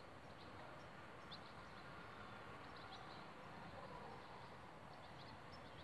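Near silence: faint outdoor background hum with a few short, high bird chirps scattered through it.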